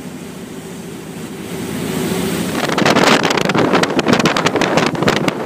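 Twin Cadillac V8 engines of a wooden Riva runabout running with a steady hum, then from about two seconds in, loud wind buffeting on the microphone and rushing water take over as the boat gathers speed.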